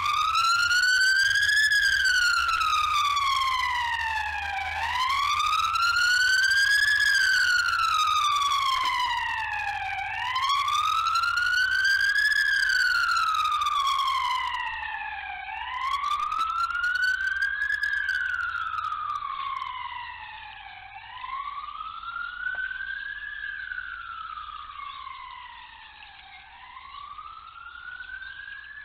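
A siren wailing, its pitch slowly rising and falling about every five seconds. It grows fainter over the second half.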